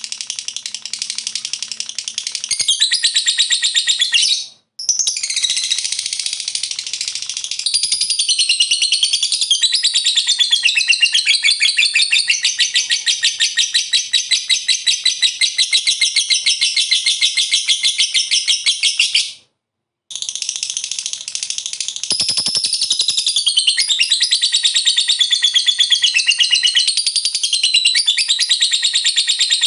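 Lovebird 'ngekek' song: a long, unbroken run of rapid, high-pitched chattering chirps. It cuts off abruptly for a moment twice, about four seconds in and again near the middle.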